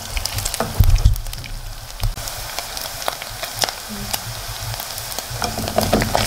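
Minced beef sizzling with fine crackles as it fries in its own rendered fat in a metal pot, while a wooden spatula stirs it. A few dull knocks about a second in.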